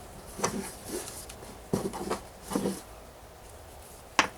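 Hands working with paracord and small objects on a table: a series of soft rustles and knocks, about half a dozen in all, ending with a sharp click.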